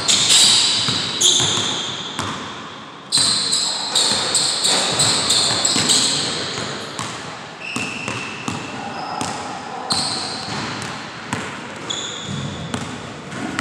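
Basketball bouncing on a hardwood gym floor as it is dribbled, sharp hits about once a second, mixed with short high-pitched squeaks of sneakers on the court.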